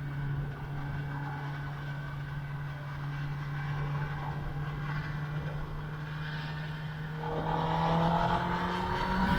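2021 Kawasaki ZX-10R's inline-four engine running at steady revs while being ridden. About seven seconds in, the revs start climbing and the engine gets louder as the bike accelerates.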